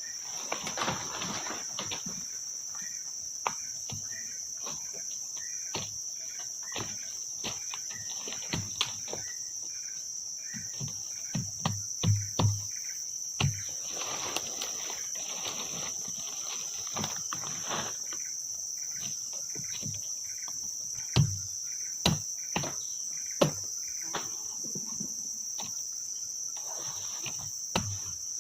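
Steady high-pitched chorus of forest insects, crickets or similar, with scattered knocks and rustling handling noises over it; the sharpest knocks come in a cluster about two thirds of the way in.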